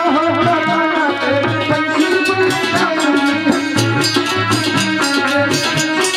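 Live Hindi devotional (bhajan) music: sustained harmonium notes over a quick, steady hand-drum rhythm.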